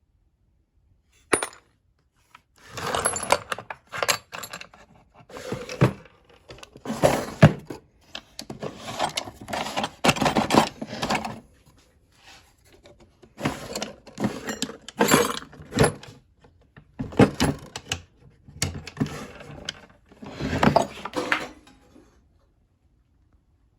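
Small metal tools clinking and rattling against each other and the box as they are handled and shifted in a machinist's toolbox. The rattling comes in about five bunches of a few seconds each, with short quiet pauses between them.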